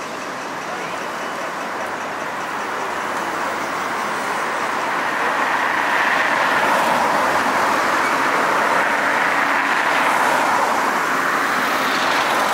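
Cars passing close by on a city street, with engine and tyre noise swelling as a line of traffic goes past. The noise is loudest in the second half.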